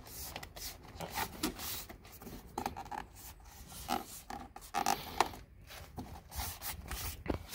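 Handling noise: irregular rubbing, rustling and light clicks as a methanol hose is worked and tucked into place along the car's trim by hand.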